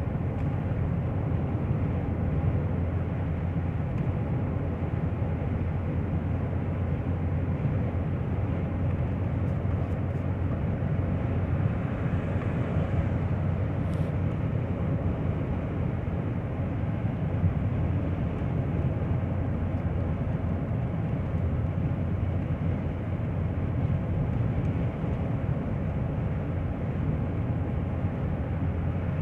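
Car being driven at steady speed on a road test: even engine and road noise with no sudden changes.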